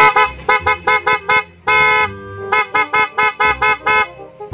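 Newly installed PIAA car horn sounding in a rapid run of short, rhythmic honks, about four a second. There is one longer blast about two seconds in.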